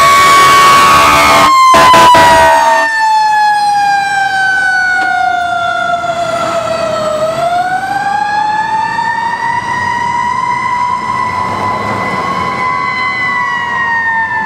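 Fire engine siren on a slow wail: the pitch falls slowly for several seconds, climbs back up, then starts to dip again near the end as the engine pulls away. At the start a loud, steady, multi-pitched horn blast sounds over it and cuts off about two to three seconds in.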